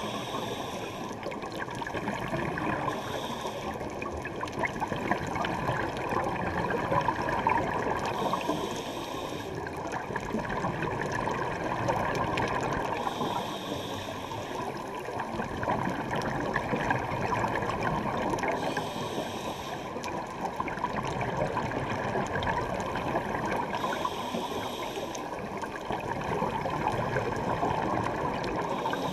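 Scuba diving underwater: a constant muffled rushing and bubbling of exhaled regulator bubbles, with a brief hiss about every five seconds as the diver draws a breath through the regulator.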